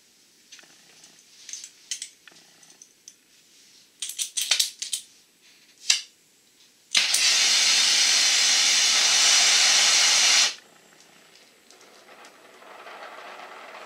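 Clicks and rattles of the oxy-fuel torch being handled, then a loud steady hiss of gas from the torch for about three and a half seconds that cuts off sharply, followed by a fainter steady rush.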